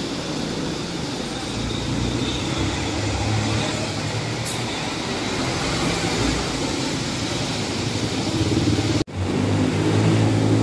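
Road traffic on a rain-wet street: vehicle engines running as cars and buses pass, over a steady hiss. The sound drops out for an instant about nine seconds in.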